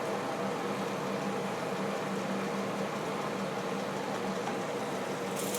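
A steady hiss with a low hum. Near the end, a sharp sizzle starts as a potato pancake patty goes into hot fat in the frying pan.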